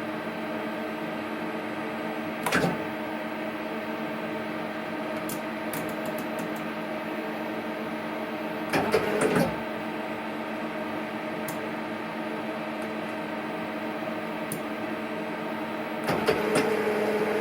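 Hardinge CNC turning centre's turret spinning round and round without stopping, its drive giving a steady humming whine with brief clunks about 2.5 and 9 seconds in, and growing louder near the end. This continuous rotation is a fault: the turret should index to a tool and stop. The owner suspects the hydraulic control valves in the turret.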